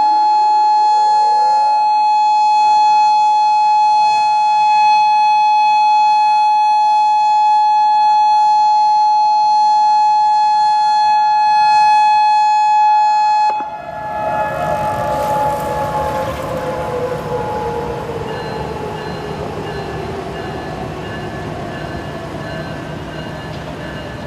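Civil defense siren holding one steady tone, then about halfway through it cuts out and winds down in a long, slowly falling pitch over a rushing noise.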